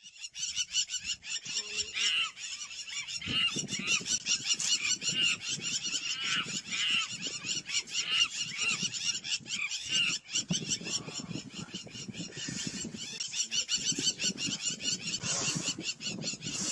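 Repeated high-pitched animal cries, about two a second, over a fast high chatter and lower rough sounds.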